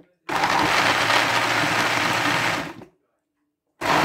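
Countertop blender pureeing leftover vegetable soup, run in pulses: one run of about two and a half seconds, a pause of about a second, then another run starting near the end.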